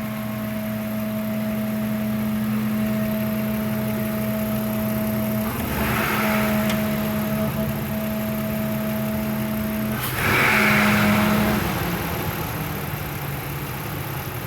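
Ford F-150 engine idling with a steady droning hum over the engine rumble, which the mechanic takes for air being drawn in, suspecting the idle air control (IAC) valve or a blocked air filter. Two brief hissing rushes break in, about six and ten seconds in, and the hum stops near the end while the engine keeps idling.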